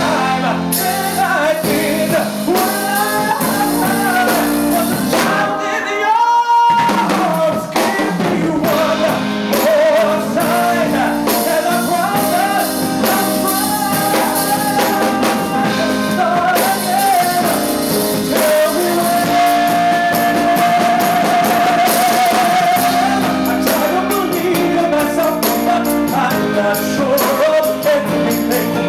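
Male vocalist singing live over a band with drums. About two-thirds of the way through he holds one long note with vibrato.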